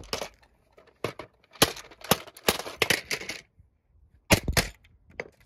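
Plastic toy telephone being smashed up: a run of sharp cracks and clatters of hard plastic, with a loud pair of knocks near the end.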